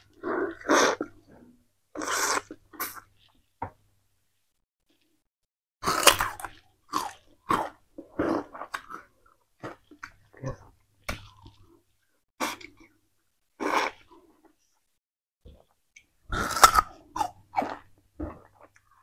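Chewing and crunching of peeled sugarcane in irregular bursts, with two pauses of about two seconds: one about four seconds in and one past the middle.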